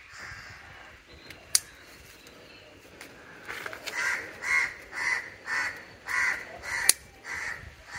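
A crow cawing over and over, about two caws a second, starting a few seconds in. Two sharp snips of garden scissors cutting stems, one loud at about one and a half seconds and another near the end.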